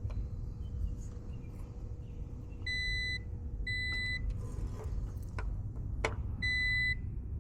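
A digital multimeter beeping: three short, high, steady electronic beeps, the first two a second apart and the third a couple of seconds later, with a few sharp clicks between them as the meter is used on the unit's low-voltage wiring.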